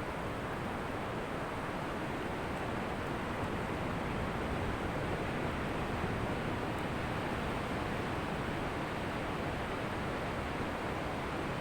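Ocean surf washing onto a beach: a steady rush of waves with no single break standing out.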